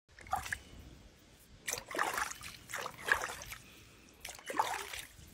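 Water splashing and sloshing as a jaguar wades through a water-filled tank, coming in four surges as it moves.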